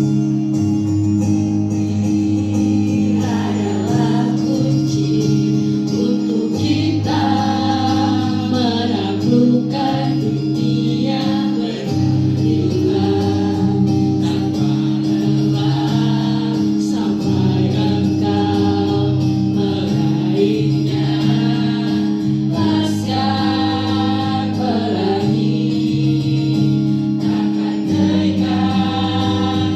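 A group of voices singing together over an instrumental backing track, played through a hall's loudspeakers.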